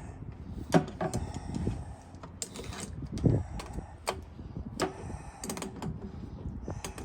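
Irregular metallic clicks, knocks and clatter of hand tools and loose metal parts being handled while fuel filter mounting brackets are worked on, over a faint steady hum.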